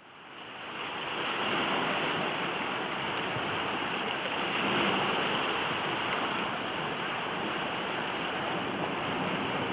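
Sea surf washing against a rocky shore: a steady rush of water that fades in over the first second or two, then holds.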